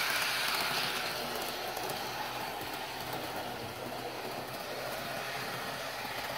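HO-scale Athearn Genesis SD45-2 model diesel locomotive running on the layout track: a steady hum of its motor and gearing with wheels rolling on the rails, getting a little quieter over the first few seconds as it moves away.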